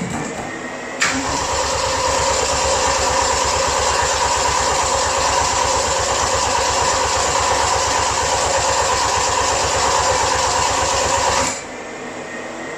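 Toyota Starlet EP82 engine spun over on its starter motor to prime the oil system after an oil change, starting with a click about a second in, holding steady for about ten seconds and stopping suddenly.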